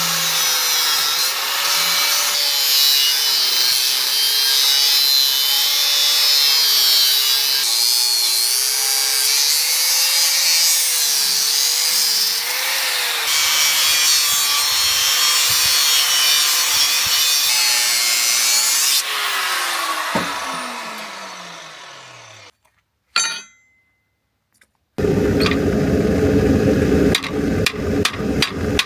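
An electric power tool runs under load, cutting or grinding, its motor pitch wavering as the load changes. About two-thirds in it is switched off and spins down with a falling whine. After a short silence a dense noise starts suddenly, and a run of sharp knocks follows near the end.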